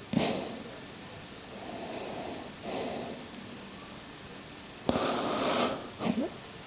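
A man breathing close to the microphone: several short, noisy exhalations, the longest and loudest about five seconds in.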